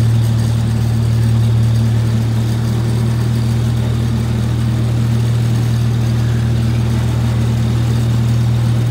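Engine of a small zoo ride train running at a steady speed: an even, deep hum that holds one pitch throughout.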